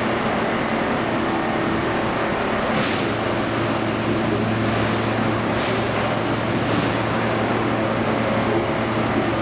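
Heavy machinery running steadily with a constant low engine drone, with two short hisses about three seconds apart.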